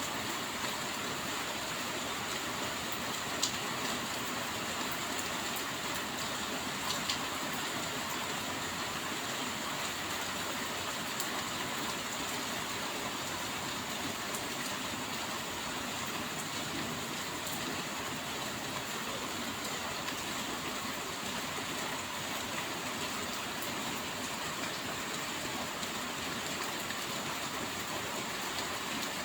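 Steady rain falling, an even hiss, with a few sharper drop clicks in the first several seconds.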